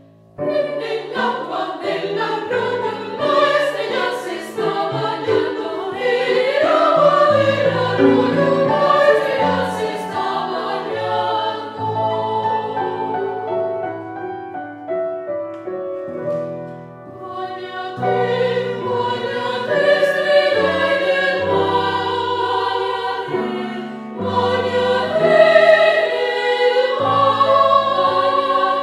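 A small women's choir singing in parts, with piano accompaniment underneath; the music starts about half a second in.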